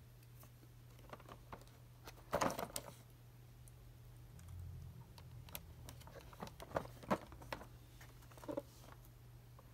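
Cardboard toy box handled by hand: a quick burst of clicking and scraping about two and a half seconds in as the top flap is opened, then scattered light taps and clicks as the box is turned over.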